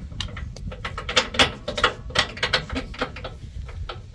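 Quick, irregular metallic clicks and taps as track bar parts are worked by hand into the mount under a pickup truck.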